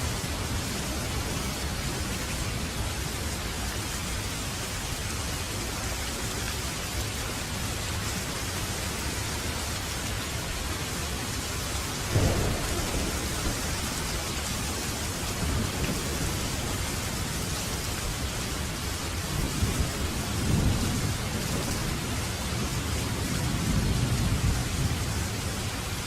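Steady rain with thunder: a sudden clap about halfway through, then low rolling rumbles near the end.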